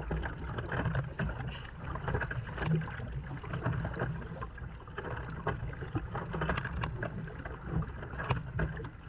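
Kayak paddle blades dipping and splashing in irregular strokes, with water rushing along the hull as the kayak moves.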